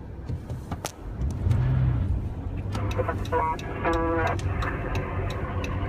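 Car engine and road noise heard from inside the cabin, rising about a second in as the car pulls away and runs on steadily. Scattered clicks and a short pitched tone come three to four seconds in.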